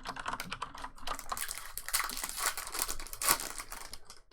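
Rapid typing on a computer keyboard right beside the microphone: a dense, uneven run of key clicks, with some crinkling mixed in.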